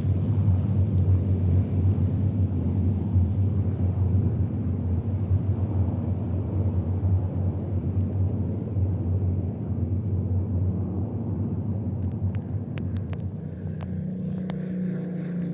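Massed Spitfire and Hurricane piston aero engines of a big formation droning in a steady, deep rumble. Near the end the deep drone drops away, leaving a single aircraft's higher engine note and a few sharp clicks.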